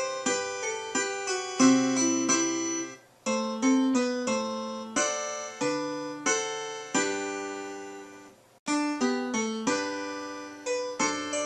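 Background music played on a keyboard: a slow tune of struck notes and chords, each fading away, with two brief breaks about three and eight and a half seconds in.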